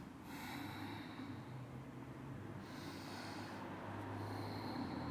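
A woman breathing audibly through the nose, a few slow, faint breaths, while holding a seated forward fold.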